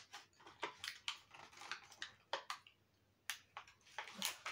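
Close-up eating of a mini lemon bakewell tart: irregular faint mouth clicks and small crunches of chewing. Sharper clicks near the end as the plastic cake tray is handled.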